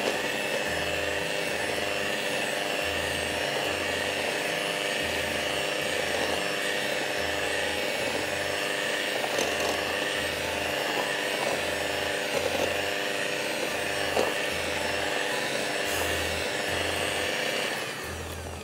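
Anex electric beater running steadily, its motor whine even throughout, as it creams butter with powdered sugar for cake batter. The sound dies away near the end.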